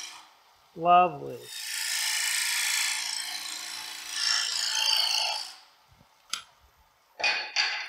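Bottom feeder bowl gouge cutting into the face of a spinning wood blank on a lathe: a steady scraping hiss of shavings coming off for about four seconds, over a faint motor hum, stopping abruptly as the tool is withdrawn. It is a slow, clean entry cut with no catches. Near the end come a click and two short scuffs.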